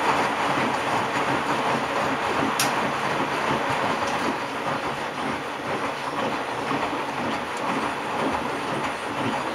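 Miele W 720 front-loading washing machine tumbling its drum in a wash: water and suds sloshing and splashing inside the turning drum, steady throughout, with one sharp click a little over two seconds in.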